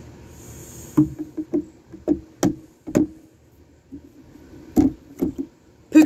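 A series of sharp taps and clicks in irregular clusters, from colouring markers being handled, capped and set down on the table and colouring book.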